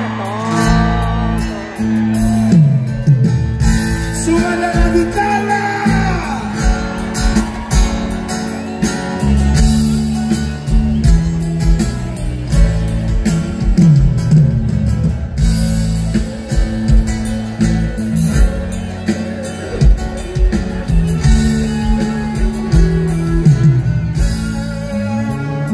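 Live band music with guitar over a steady bass line, with a voice singing over the first few seconds.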